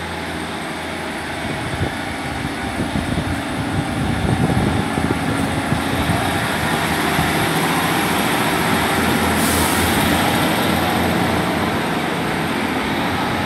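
Class 150 Sprinter diesel multiple unit running at the platform, its engine growing louder around four seconds in and then holding steady. A high hiss joins about nine and a half seconds in.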